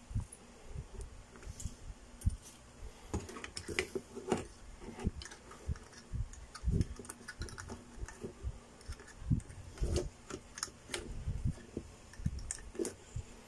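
Irregular light clicks and taps of a circuit board, its ribbon cable and tools being handled against the opened LED TV's plastic and metal housing.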